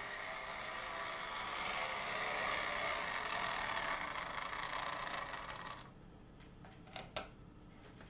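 OO gauge model N2 tank locomotive running on the track under analogue power, its electric motor and wheels making a steady whir. The whir stops suddenly about three-quarters of the way through, followed by a few sharp light clicks.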